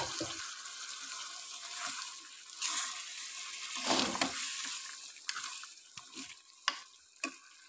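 Beef karahi sizzling and bubbling in hot oil, with water just added, while a spoon stirs and scrapes the wok. The sizzle swells about three to four seconds in, then dies down, leaving a few sharp clicks near the end.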